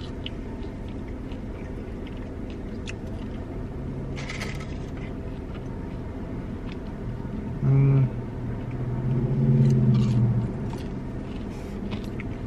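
Steady low rumble of a car idling, heard from inside the cabin, with light clicks and a brief crinkle of takeout packaging being handled. Past the middle come two low hums, one short and one longer, which are the loudest sounds.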